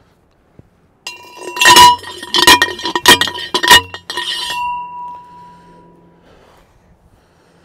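A steel rebar stake struck repeatedly with a hammer as it is driven into the ground: about half a dozen sharp metallic clanks over some three seconds, then the rod rings on and fades out.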